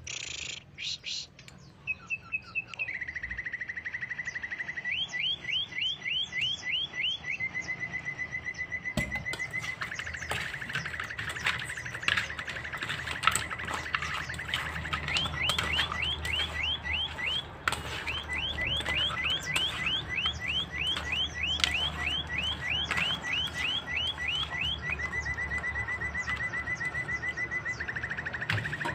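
Wet squelching and small knocks of hands rubbing pieces of snakehead fish with lime juice in a metal bowl. Behind it a bird's high trill keeps going, broken by runs of quick rising chirps.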